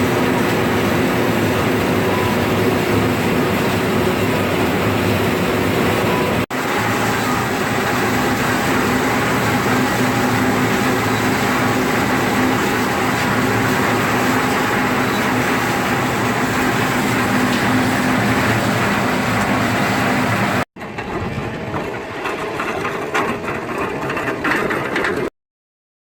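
Olive mill machinery running with a steady mechanical hum. It breaks off briefly about six seconds in. After a second break near the end, a quieter, more uneven machine sound follows and then stops abruptly.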